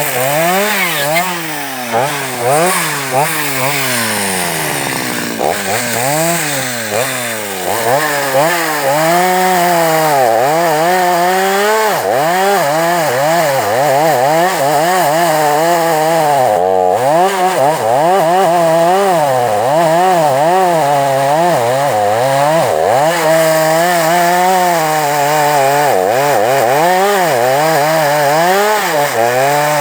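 Two-stroke chainsaw running at high revs, its engine pitch rising and falling over and over as it works through wood under load. It dips out briefly about two-thirds of the way through.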